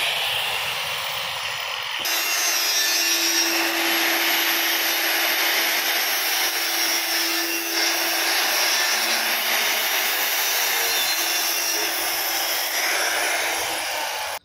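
Makita angle grinder with an abrasive disc cutting through a steel pipe: a loud, steady grinding hiss over a constant motor whine, stopping abruptly at the end.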